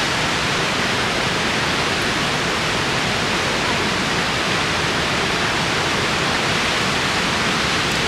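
Rushing water of river falls and rapids: a steady, even hiss like white noise.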